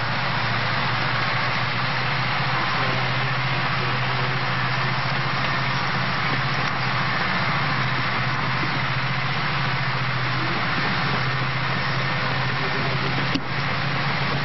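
An engine running steadily at idle with a low hum, and a brief click near the end.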